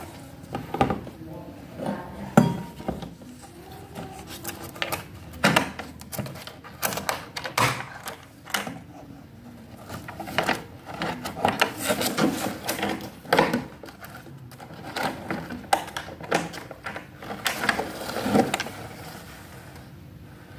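Hard plastic tool case being handled on a tiled floor: irregular clicks and knocks as it is laid flat, its latches are snapped open and the lid is lifted.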